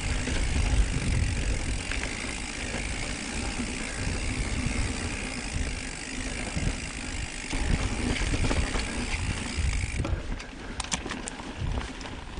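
Mountain bike rolling over rocky dirt singletrack: tyre and trail noise and the bike rattling, with wind buffeting the microphone. A steady high buzz, typical of a coasting freehub ratchet, stops about ten seconds in, followed by a few sharp clicks.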